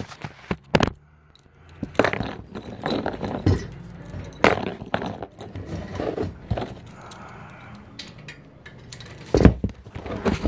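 Steel chain links jangling and clinking, with irregular knocks and scrapes as the chain of a mower striping kit is handled and hooked on.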